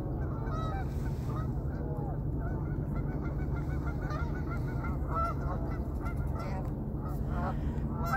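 A flock of geese honking continually, many short overlapping calls, over a steady low rumble.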